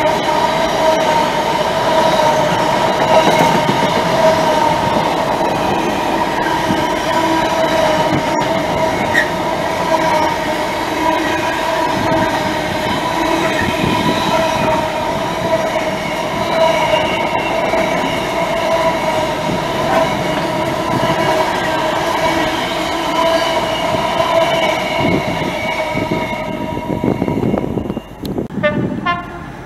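Intermodal container freight train's wagons rolling past at speed, a continuous rumble and rattle with a steady high ringing from the wheels. Near the end the noise drops away as the last wagon passes, with a short run of clicks over the rail joints.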